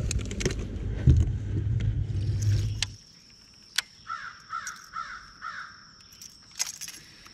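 Low rumbling noise for about the first three seconds. Then a crow caws four times in quick succession over a thin, steady high tone.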